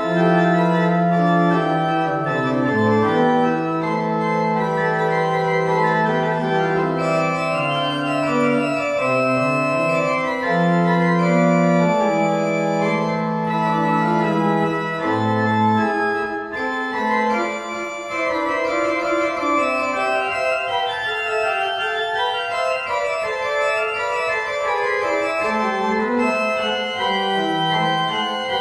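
Church pipe organ playing a piece in long held chords. The low bass notes drop out about halfway through and come back near the end.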